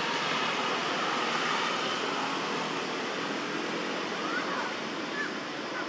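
Steady outdoor background hiss with no distinct source, with a few faint, short chirps in the last two seconds.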